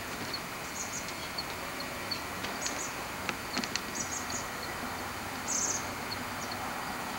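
Steady outdoor background noise with small birds giving short, high chirps throughout, a longer run of chirps about five and a half seconds in, and a few sharp clicks near the middle.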